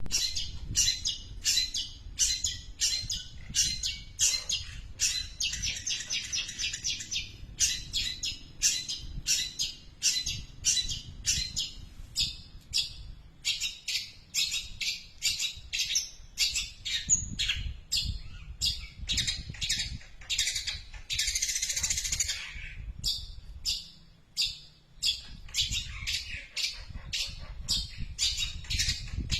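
Long-tailed shrike singing a long run of mimicked Eurasian tree sparrow chirps. The sharp chirps come about two to three a second, with fast chattering runs about five to seven seconds in and again about twenty-one seconds in, and a brief pause near twenty-four seconds.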